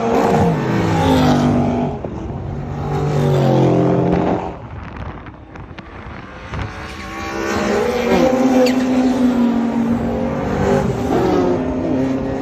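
Turbocharged race car engine pulling hard and lifting off, its note climbing through the revs, falling away about four and a half seconds in, then pulling again with short dips at the gear changes. Old-school turbo flutter sounds on the lift-offs.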